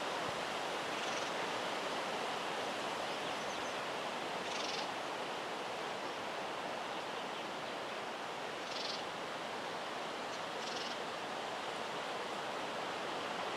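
Outdoor ambience: a steady hiss, with short high chirps a few seconds apart.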